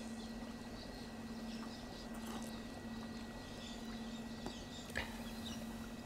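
Quiet outdoor ambience: faint bird chirps over a steady low hum, with a single soft click about five seconds in.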